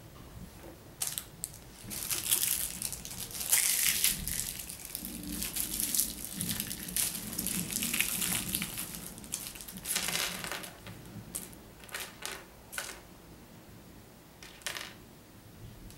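Clear plastic Lego parts bag crinkling and rustling as it is handled and opened, loudest in the middle, followed by a few short clicks as pieces are handled.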